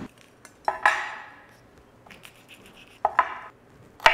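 Kitchen utensils and cookware clinking: a few separate sharp knocks that ring briefly, one about a second in, two close together around three seconds, and another near the end.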